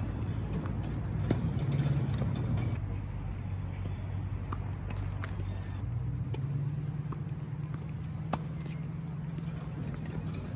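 Tennis ball struck back and forth in a rally on a hard court: sharp, irregular pops of racquet hits. A steady low engine hum runs underneath.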